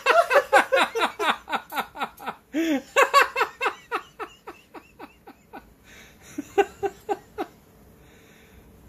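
A person laughing in a long run of quick pitched pulses, about four or five a second, loud at first and fading over about five seconds, with a few more short laughs near the end.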